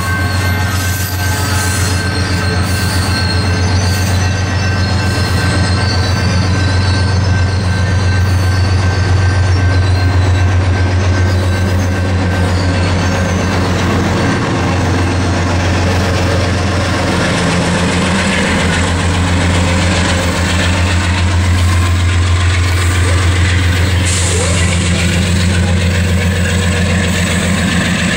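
Amtrak California bilevel passenger cars rolling past close by, a steady loud rumble of wheels on rail with a continuous low hum.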